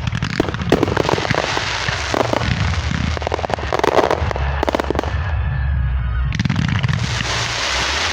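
Fireworks crackling: a dense, rapid string of small pops and bangs that thins out briefly about five seconds in, then a sudden, loud, hissing crackle starts about six and a half seconds in.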